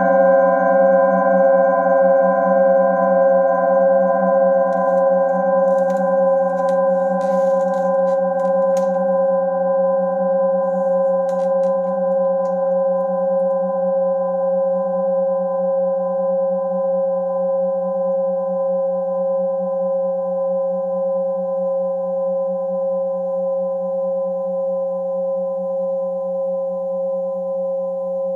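Metal singing bowls ringing on after being played: a low hum with several higher tones above it, pulsing with a steady wobble and slowly fading. A few faint clicks and rustles come between about 5 and 12 seconds in.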